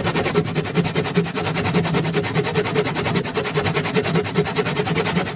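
A 400 mm hand saw cutting into a wooden roller held in a vise. Quick back-and-forth strokes make a steady rasping, several pulses a second.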